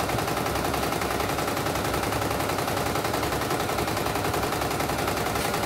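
CNY E900 computerized embroidery machine stitching a design: a fast, steady clatter of needle strokes as the hoop is driven, the machine running a test after its mainboard was replaced.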